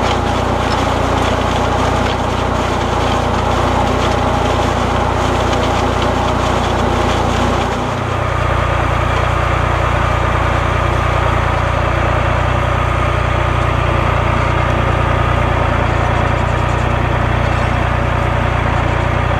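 Fendt 209 F tractor engine running steadily. A rustling hiss lies over it at first; after a brief dip about eight seconds in, the hiss drops away, leaving a steady hum with a faint high whine.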